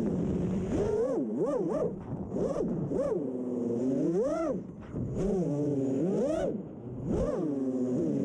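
Brushless motors and propellers of a 6-inch FPV quadcopter (Emax ECO 2207 2400kv motors) whining, the pitch swooping up and down over and over as the throttle is punched and let off in freestyle flight. Heard from the camera mounted on the quad.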